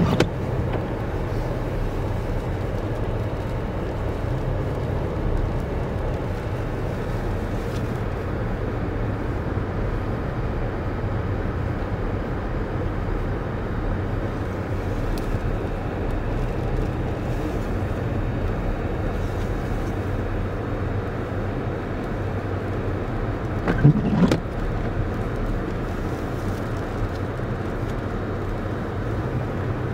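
Steady low engine and road drone inside a car's cabin as it drives slowly on a snow-covered highway, with one brief louder sound about three quarters of the way through.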